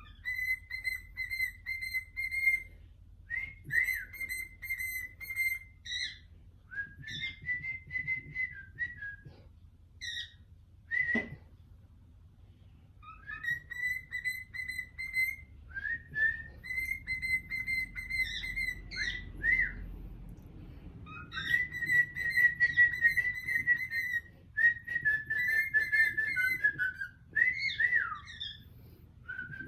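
Pet cockatiel whistling: phrases of held high notes with short swoops up and down, separated by pauses of a second or so.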